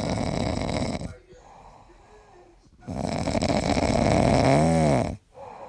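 Boston Terrier snoring loudly: two long, rattling snores with a quieter breath between them. The second snore is longer and louder, and its pitch rises and falls near its end.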